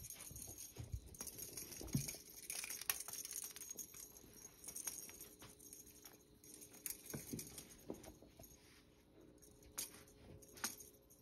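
Faint scattered taps, rustles and small clinks from a cat in a vest harness moving about on a rug and swiping at a feather toy.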